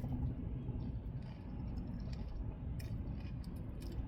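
Chewing of crisp lettuce taco boats close to the microphone, with scattered small crunches, over a steady low rumble.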